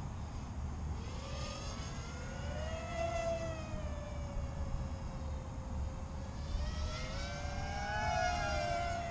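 A small 210-size FPV racing quadcopter's brushless motors and propellers whining in flight, the pitch rising and falling with throttle. The whine is loudest about two to three seconds in and again near the end.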